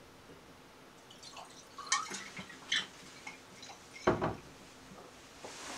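Whisky being poured from a bottle into a tulip-shaped nosing glass, trickling and splashing in small irregular sounds for a couple of seconds. A single louder knock follows about four seconds in.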